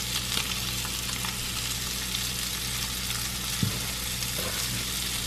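Seasoned fish fillets sizzling in oil in a cast-iron skillet, a steady hiss with small pops and crackles, the heat just turned up. A low steady hum runs underneath, and there is one soft knock about three and a half seconds in.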